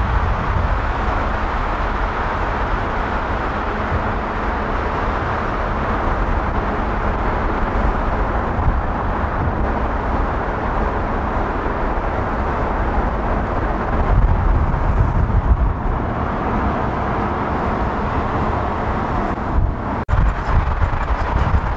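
Audi car driving through a road tunnel: steady road and traffic noise with a strong low rumble. A brief dropout about twenty seconds in.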